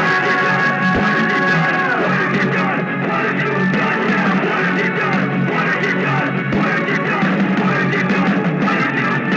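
A rock song playing continuously, with guitar and other instruments.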